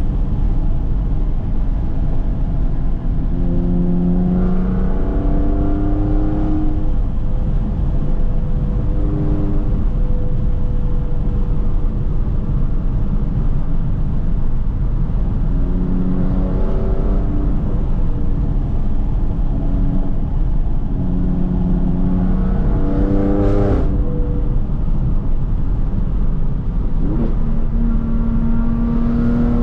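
2015 BMW F80 M3's twin-turbo inline-six with a straight-piped exhaust, heard from inside the cabin while driving. A constant loud rumbling drone, broken by several pulls where the engine note climbs in pitch. There is a single sharp crack about three quarters of the way through.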